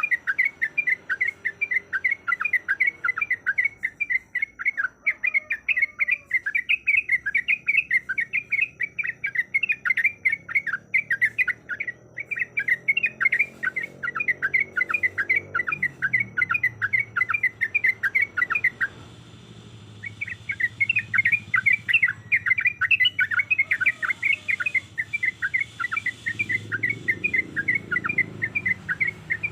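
Yellow-vented bulbul (trucuk) calling in a long, rapid run of sharp chattering notes, several a second, with a pause of about a second roughly two-thirds of the way through. This is the kind of excited call used to lure and provoke a bulbul into calling.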